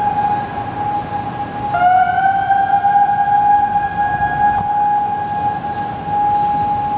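Outdoor civil-defence warning siren from a municipal disaster-prevention loudspeaker system, holding one steady tone; about two seconds in, a second siren tone comes in low and rises to the same pitch. It is sounding as the signal for a disaster-prevention drill.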